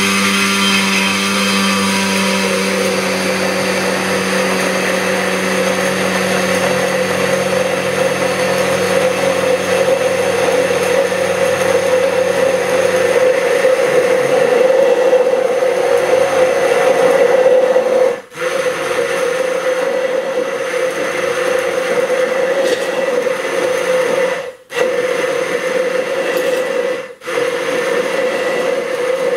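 Electric immersion (stick) blender running steadily in a glass jar, emulsifying sunflower oil and raw egg into mayonnaise. A lower hum drops away about halfway through as the mixture thickens, and the motor cuts out for a moment three times in the second half.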